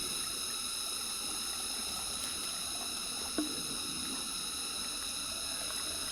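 Mountain stream flowing steadily, with one light knock about three and a half seconds in.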